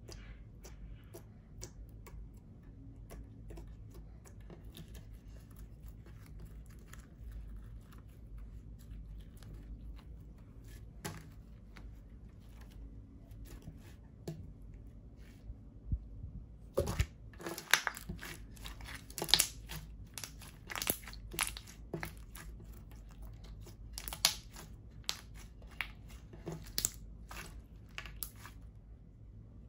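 Glitter-filled clear slime being pressed, stretched and kneaded by hand, giving sticky clicks and small pops. The clicks are sparse and soft at first, then come thicker and louder from a little past halfway, after a dull thump.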